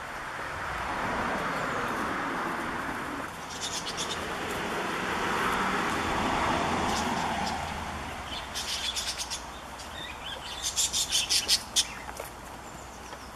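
Small birds chirping in quick runs of short, high notes, loudest near the end. Under them, for the first half or so, a broad rushing sound swells and fades.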